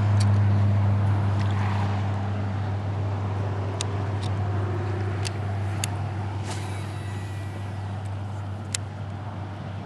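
Interstate highway traffic: a heavy vehicle's steady low drone slowly fading away. A handful of short sharp clicks sound over it in the second half.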